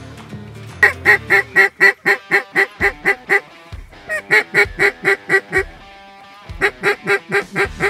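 Mallard duck call blown by a hunter to circling ducks: three runs of loud, evenly spaced hen quacks about four a second. The first run has about a dozen quacks, the second about seven, and the third starts near the end and carries on.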